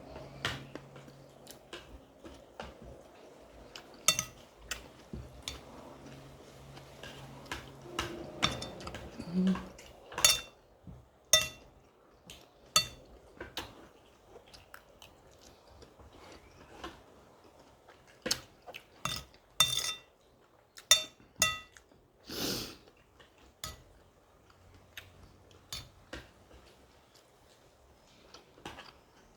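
Cutlery clinking and scraping against a dinner plate while eating: scattered sharp clinks that ring briefly, coming more often in the second half, with one longer scrape about three quarters of the way through.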